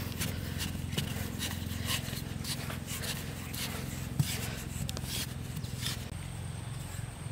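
Metal-bladed digging tool stabbing and scraping into dry, sandy soil, about two short strokes a second, over a steady low engine drone.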